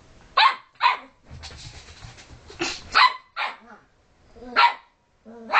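Dog barking in short, sharp barks, about six of them: two close together near the start, the rest spread over the next few seconds. This is play barking, with a puppy pestering an older dog.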